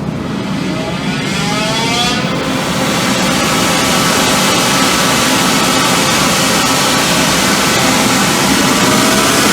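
2005 CompAir L45SR variable-speed rotary screw air compressor with a 60 hp motor ramping up just after start, a rising whine over the first couple of seconds as the motor speeds up, then running steadily at full speed. Its air is blowing out freely through an open discharge pipe with no dryer attached, a loud rushing hiss under the machine noise.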